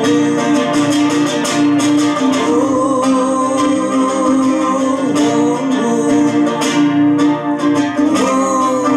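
Amplified nylon-string classical guitar strummed in a steady rhythm, with a man singing a folk song along with it.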